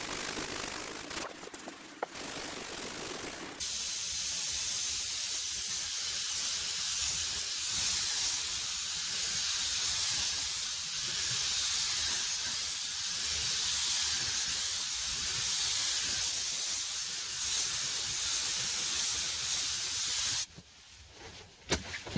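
Compressed-air spray gun hissing steadily as paint is sprayed. It starts abruptly a few seconds in and cuts off shortly before the end.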